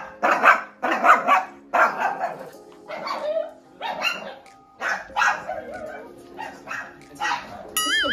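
Small white long-haired pet dog barking repeatedly, about one to two barks a second, at a stranger in the house. A brief warbling tone comes in near the end.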